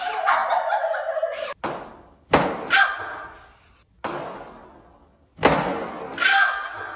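A run of sharp, added impact sound effects, about six in all, each with a long fading tail and a couple with a brief ringing tone, laid over a replay of foam-sword hits. Before them, a sustained sound carrying several pitches cuts off abruptly about a second and a half in.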